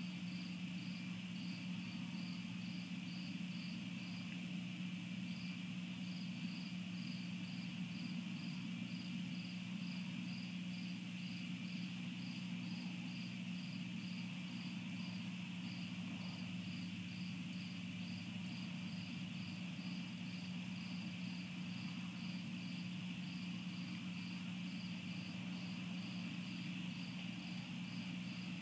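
Crickets chirping at night: a high, regular chirp repeating about two to three times a second over a continuous insect trill, with a steady low hum underneath.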